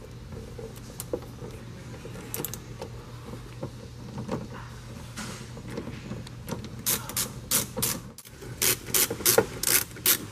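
3/8-inch drive ratchet on a T30 Torx extension, clicking as it backs out the tail light's mounting bolts. There are a few scattered clicks at first, then a fast run of ratchet clicks from about the middle on, with a short break before it resumes.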